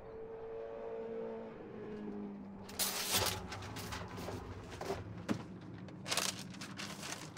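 Paper rustling twice as pages of a payphone booth's phone book are turned, over a low steady hum.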